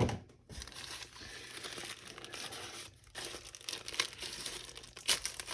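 Resealable packaging pouch crinkling and rustling as it is handled and opened by hand, with a short knock at the start and a few sharper crackles later on.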